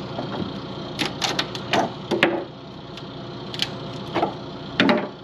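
Sharp clicks and knocks of hardware as a catamaran's kick-up rudder is worked loose by hand and removed from its fitting. The rudder partly broke when the boat ran aground and did not kick up. The knocks come irregularly, with a quick cluster about a second in.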